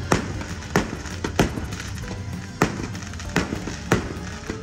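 Aerial fireworks bursting, about seven sharp bangs at uneven intervals, over steady music.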